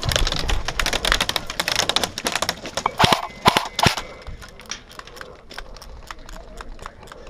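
Airsoft guns firing: rapid strings of sharp pops, thickest and loudest in the first four seconds, with a loud cluster of shots near the middle. After that, fainter scattered shots keep going.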